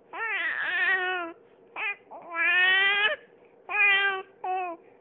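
A just-woken baby crying in five cries: two of about a second each, the others short.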